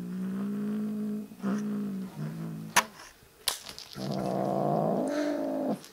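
Kitten growling low and drawn-out while guarding a toy it holds in its mouth: a long growl at the start, a shorter one, then a louder growl of nearly two seconds near the end that rises and falls. Two sharp clicks come between them.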